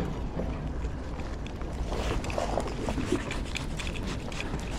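Wind buffeting the microphone as a steady low rumble, with faint scattered ticks from the rod and reel being handled.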